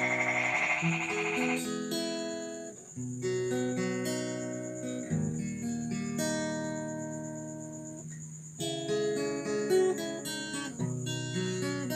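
Acoustic guitar played fingerstyle: plucked bass notes and melody notes over chords, with one chord left ringing for several seconds midway before the picking resumes.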